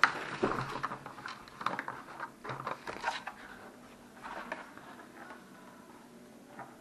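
Black plastic foosball ball-return tracks being handled: irregular clicks, taps and rustles of rigid plastic, busiest in the first few seconds and thinning out after.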